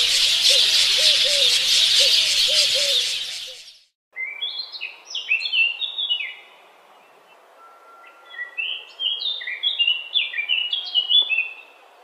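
Dense jungle chorus of calls with a repeated low call about three times a second, fading out after about three and a half seconds. After a brief gap, a songbird sings two bursts of quick sliding whistled notes over a faint background hiss.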